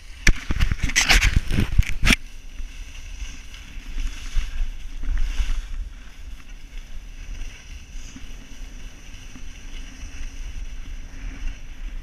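Skis scraping and chattering over hard-packed groomed snow, with a burst of loud clattering knocks in the first two seconds. Wind rushes over the camera microphone.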